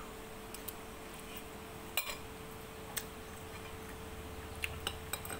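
Metal fork and spoon clinking and scraping against a ceramic plate while eating noodles: scattered sharp clinks, the loudest about two seconds in and a quick cluster near the end.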